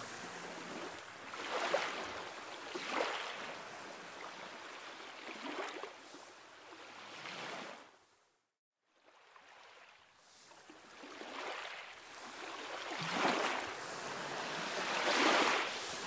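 Sea waves washing and breaking against a rocky shore, swelling and ebbing every second or two. The sound cuts out completely for about a second midway.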